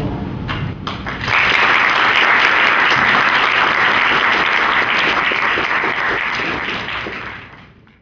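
Audience applauding: a few scattered claps, then full applause from about a second in that holds steady and fades out near the end.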